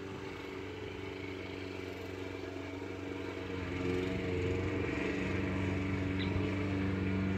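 A steady engine hum with a low drone, growing louder about halfway through.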